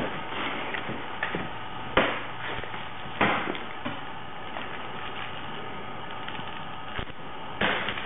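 A crunchy toy being stomped on and crunched by a pet: scattered sharp crackling knocks, the loudest about two seconds in, another about a second later, and a quick run of them near the end.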